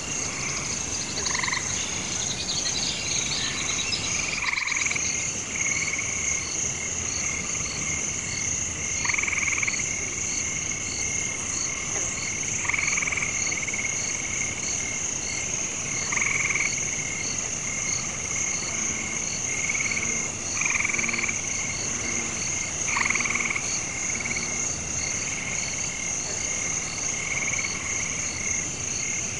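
Night swamp chorus: frogs croaking in separate calls every few seconds over a steady high-pitched insect trill.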